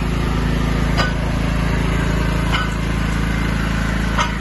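5 kW petrol generator set's engine running steadily, just started on its electric start. A sharp click sounds three times, about every second and a half.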